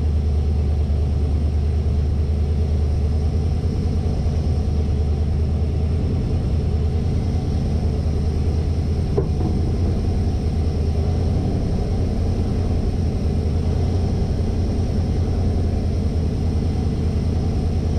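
A 1972 Winnebago Brave motorhome's engine running with a steady low rumble, heard from inside the cab.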